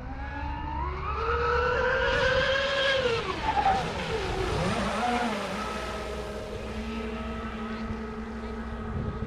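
High-speed RC speedboat's electric motors whining under throttle, rising in pitch for about three seconds, then falling away sharply and settling into a steady lower whine.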